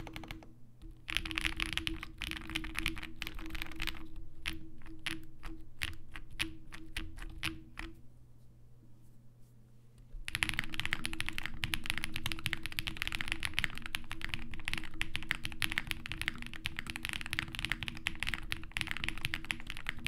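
Typing on a Zoom65 mechanical keyboard with doubleshot ABS GMK Redacted keycaps and lubed Durock POM linear switches, fitted with PE foam and plate foam. The strokes thin out to single presses, then about eight seconds in there is a short pause. About ten seconds in fast, continuous typing resumes with PCB foam added as well.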